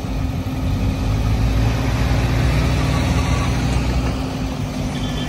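Diesel engine of a JCB backhoe loader running steadily with a low drone.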